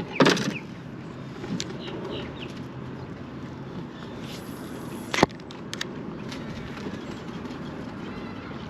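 Steady outdoor background with a few faint bird chirps, broken by two sharp knocks: one right at the start and a shorter one about five seconds in.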